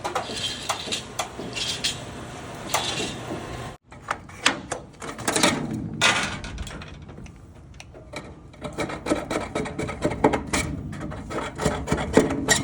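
Irregular knocks, clanks and scraping of metal gutter sections being handled and fitted, with a sudden break about four seconds in.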